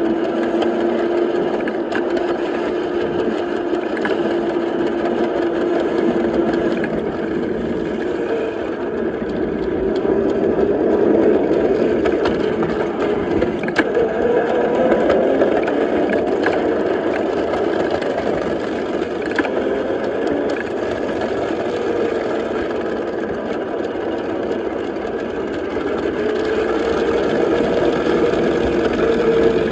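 Ride-on scale Mack locomotive running along its track: a steady drive hum that holds one pitch at first, then drifts up and down with speed. Now and then a sharp click comes from the wheels on the rails.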